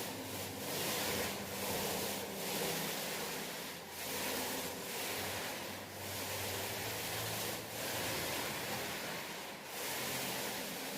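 Paint roller rolling wet paint onto a wall: a rasping hiss that swells and dips with each stroke, about one stroke every second or two.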